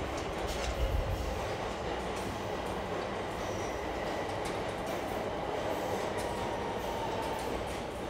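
Rapid-transit train running: a steady rumble and rattle of the rail car, swelling briefly about a second in, with a faint thin whine near the end.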